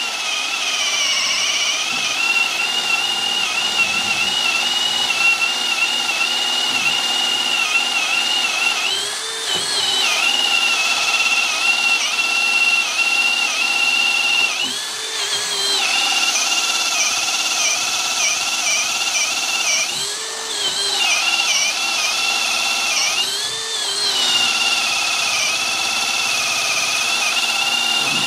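18V cordless drill (a Makita-battery replica) in high gear boring a 26 mm bit into a block of wood. The motor whine is steady and sags in pitch about four times as the bit bites, then picks back up each time without stalling.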